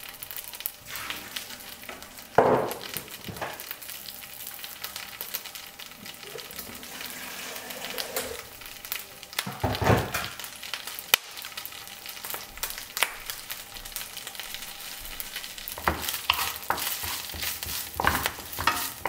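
Kelp strips sizzling in hot oil in a nonstick frying pan, a steady hiss. Two louder knocks about two and ten seconds in, and from about sixteen seconds a wooden spatula stirring the kelp around the pan with quick clicks and scrapes.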